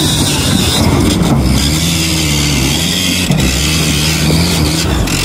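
Off-road 4x4's engine revving under load, its pitch rising and falling several times, with a few short knocks.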